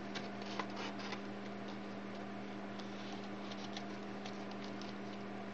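Scattered faint clicks and light taps of small objects being handled, irregular and spaced out, over a steady low hum.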